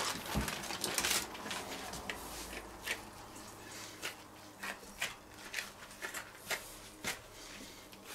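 Baking paper crinkling and rustling as gloved hands peel it back from a bacon-wrapped meat roll and then press the roll into shape on it: irregular crackles, loudest in the first second or so, then scattered.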